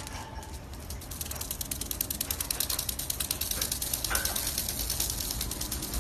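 Black-headed caique making a fast, even run of clicks, more than ten a second, that sounds like a ratchet. It starts about a second in while the bird shakes its head rapidly.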